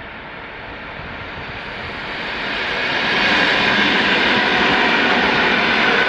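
Russian electric multiple-unit commuter train (elektrichka) passing close by: the rushing of its wheels on the rails grows steadily louder as it approaches, then holds loud from about three seconds in as the cars go past.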